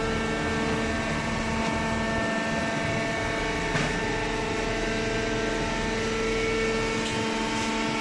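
Hydraulic baler's electric motor and pump running, a steady machine hum with several held tones and a faint whine.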